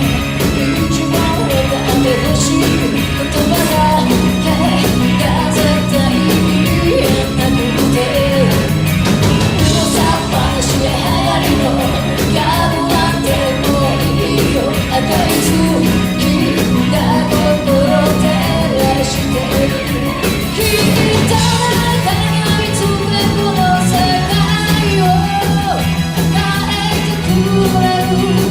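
Rock band playing live with a lead singer over bass and drums, loud and continuous.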